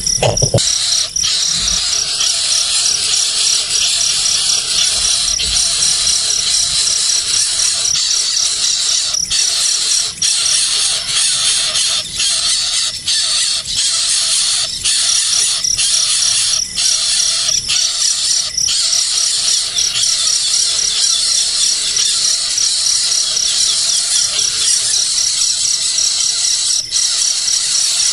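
Nestling birds begging with continuous shrill squealing calls, over an insect's rapid, evenly pulsed high chirping that stops for a few seconds in the middle.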